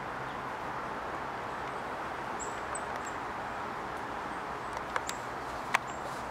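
Small songbirds giving a few short, very high, thin call notes, a cluster about two to three seconds in and a couple more near the end, over a steady background hiss. A few sharp taps near the end, the loudest about half a second before it ends.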